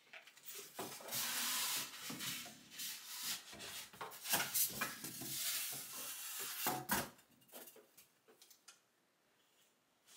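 Rustling and scraping of packaging as a boxed sewing machine in its hard case is lifted out, with scattered knocks and bumps; the handling noise dies away about seven seconds in.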